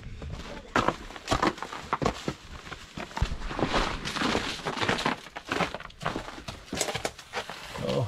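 Irregular footsteps crunching over snow and dry leaf litter, close to the microphone.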